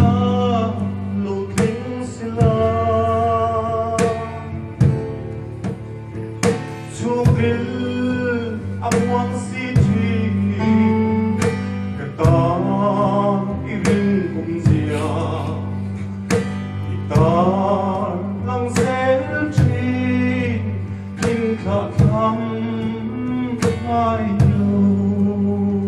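A man singing a Mizo song into a microphone over amplified guitar accompaniment with a steady strummed beat.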